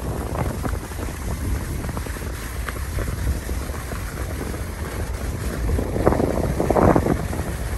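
Wind buffeting the microphone as a skier descends, over the hiss of skis sliding on groomed snow. Near the end, two louder surges of scraping from the skis.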